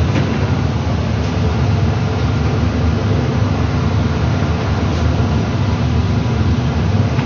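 Steady low rumble of kitchen machinery in a shawarma shop, the running of extractor hoods and grill equipment around a vertical shawarma rotisserie.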